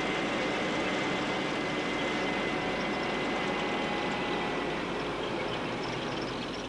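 Steady vehicle noise, a running engine with rumble and a faint thin whine above it, holding even and easing slightly near the end.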